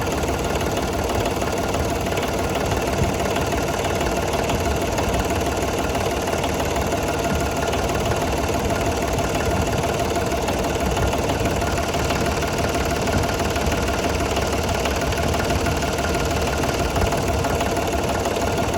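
Tractor engine idling steadily, with no change in speed.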